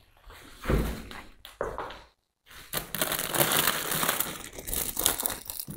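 A couple of thumps in the first two seconds, then plastic wrapping crinkling and rustling as potted plants in plastic sleeves are handled in a cardboard box.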